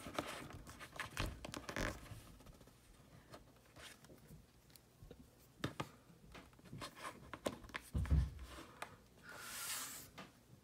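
Plastic action figures being handled and posed on a tabletop: scattered small clicks, taps and rubbing, with a soft thump about eight seconds in and a short hiss near the end.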